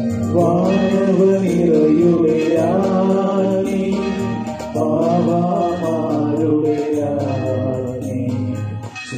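Devotional song: a voice singing a gliding melody over steady instrumental accompaniment.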